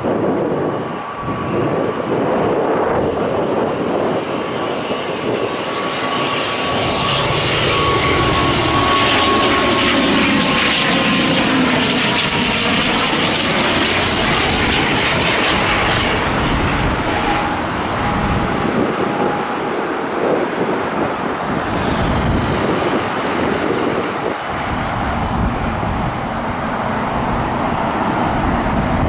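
Jet airliner on final approach passing low overhead to land. Its engine noise swells to a peak about halfway through, and a high engine whine drops in pitch as the plane goes past. Wind rumbles on the microphone.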